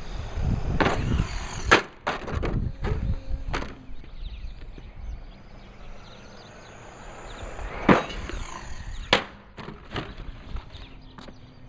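Brushless-powered RC truck, fitted with an Arrma motor, being driven hard: tyres rumbling over the ground, with a faint high motor whine rising and falling. Sharp clacks and knocks as the truck bounces and crashes, several in the first few seconds and two loud ones later on.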